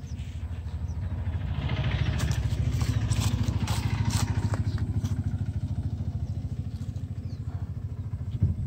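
A small engine running with a fast, low putter, growing louder over the first three seconds and then slowly fading. A few brief clattering knocks come between about two and five seconds in, and a single sharp knock comes near the end.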